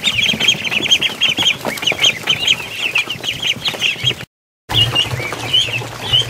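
A crowd of ducklings peeping nonstop, many short high calls overlapping. The sound drops out for a moment about two-thirds through; after that the peeping is sparser over a low steady hum.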